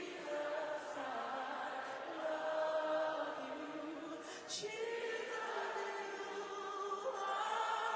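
Congregation singing a slow worship song together, many voices holding long notes.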